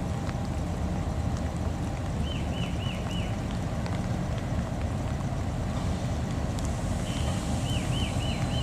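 Diesel-electric locomotive engine running with a low, steady rumble as the passenger train creeps slowly into the station. Two short runs of quick high chirps sound over it, about two seconds in and again near the end.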